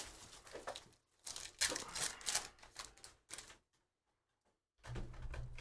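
Foil wrapper of a Panini Prizm football hobby pack tearing and crinkling as the pack is opened and the cards are pulled out, a quick run of sharp crackles. A low hum comes in near the end.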